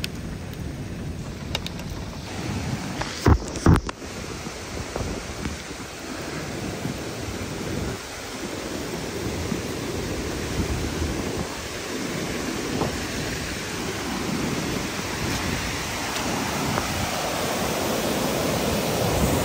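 Rain and the steady rush of a creek in muddy flash flood, the water noise growing louder toward the end. Two sharp thumps come close together about three and a half seconds in.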